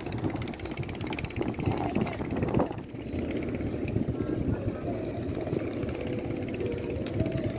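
A motor running steadily at low speed, with faint voices.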